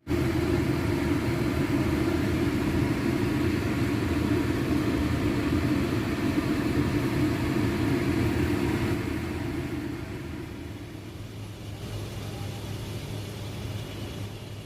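A steady low mechanical rumble with a humming band, like a motor or fan running, dropping to a softer level about ten seconds in.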